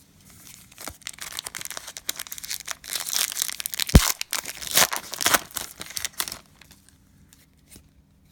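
Cellophane wrapper of a trading-card cello pack being crinkled and torn open, a dense crackling that is loudest in the middle, with one sharp snap about four seconds in.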